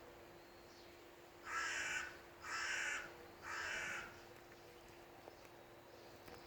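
A bird calling three times in quick succession. Each call is harsh and about half a second long.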